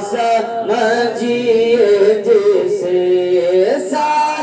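A man singing a naat unaccompanied, drawing out a long wordless melismatic phrase with sliding ornaments. Near the end a note is held steady, then the voice rises.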